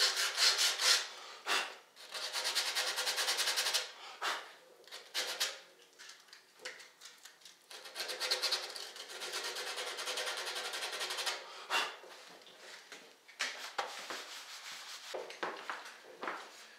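Folded sandpaper rubbed by hand in quick back-and-forth strokes on the coped end of primed MDF base trim, cleaning up the cut. It goes in several passes with short pauses between them, then a few light knocks near the end.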